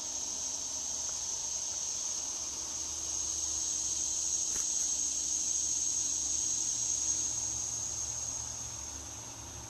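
Steady, high-pitched shrilling of an insect chorus in the trees, swelling through the middle and easing off near the end.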